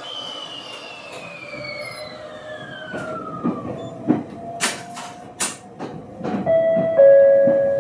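Ueda Electric Railway electric train heard from inside the car: its motor whine falls steadily in pitch as the train slows, and the wheels clack sharply over rail joints several times from about three seconds in. A steady humming tone comes in near the end.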